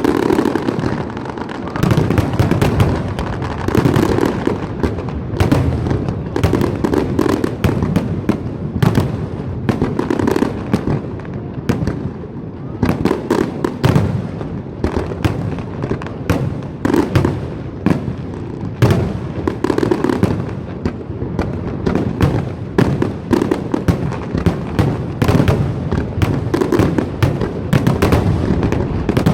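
Fireworks display: a dense, continuous barrage of bangs and crackles, several bursts a second over a constant low rumble.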